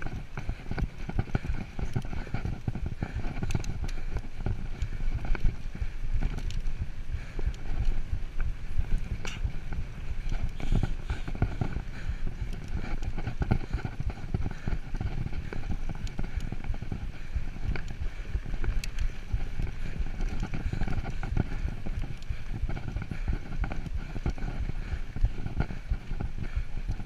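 Mountain bike being ridden over a dirt singletrack: tyres on hardpack and the bike rattling over bumps, a dense, steady run of small knocks.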